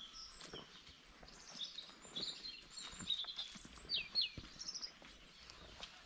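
Small birds chirping and twittering outdoors in many quick short notes, with a pair of falling whistled notes about four seconds in. Faint scattered clicks and rustles sound under the birdsong.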